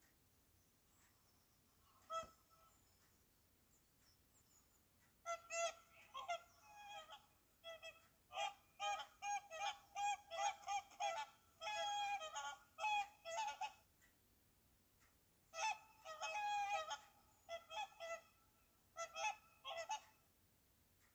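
Whooper swans calling: one short call about two seconds in, then several birds giving rapid, overlapping calls for most of the rest, with a brief pause near the middle.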